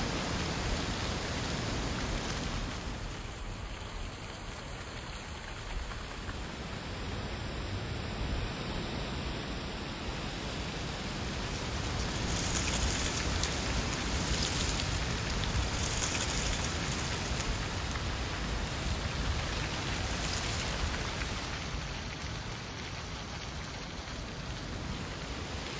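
Wind gusting through autumn trees and rustling their dry leaves: a steady hiss that eases a few seconds in and swells again past the middle, over a low rumble of wind on the microphone.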